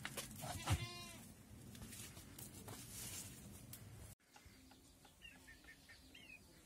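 Goat bleating once, briefly, about a second in, over scattered clicks of hooves on a stone path. After a sudden cut about four seconds in come faint high chirps of birds.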